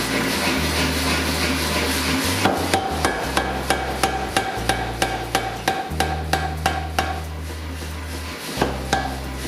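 Hammer blows on steel at the forge, about three a second, with the metal ringing between strikes, over a steady low hum.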